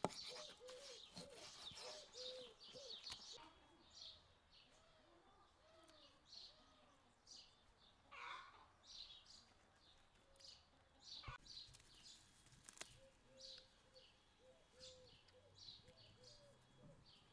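Faint birdsong: small birds chirping repeatedly, with a dove cooing in a low, repeated phrase.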